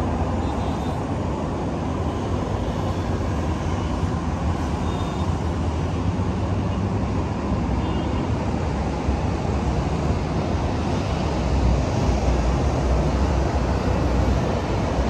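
Steady city road traffic heard from high above the street: a continuous wash of passing cars and a bus, with a deep rumble that grows a little louder about twelve seconds in.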